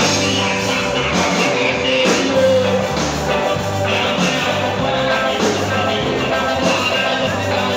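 Live rock band playing through a PA: electric guitars, drum kit and keyboard over a moving bass line, loud and continuous.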